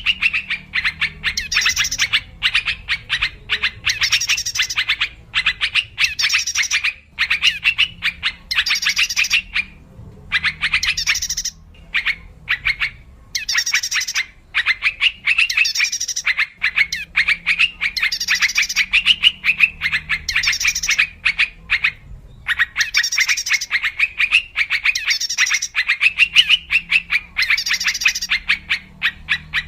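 Yellow-vented bulbuls (trucuk) giving fast, bubbly chattering calls in repeated bursts of a second or two with short gaps between them. This is a lure recording used to draw in wild birds of the same species.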